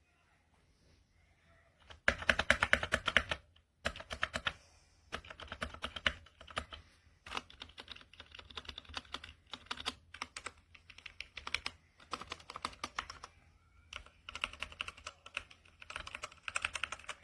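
Typing on a Royal Kludge RK61 60% mechanical keyboard: fast runs of key clicks in bursts with short pauses, starting about two seconds in. The reviewer feels the switches could be a little more lubed.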